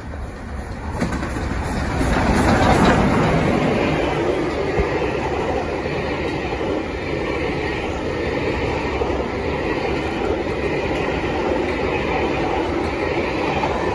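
Steam locomotive 46115 Scots Guardsman, an LMS Royal Scot class 4-6-0, passing at speed, loudest about two to three seconds in. Its train of coaches follows with a steady rumble and clickety-clack of wheels over the rails.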